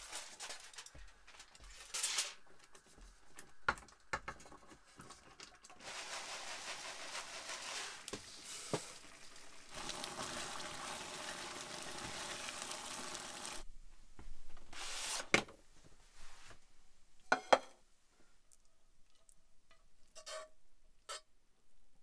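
Curry sizzling in a frying pan as it is stirred with a silicone spatula, a steady hiss for several seconds in the middle. Around it, sharp knocks and clinks of cooking utensils against pots and a plate.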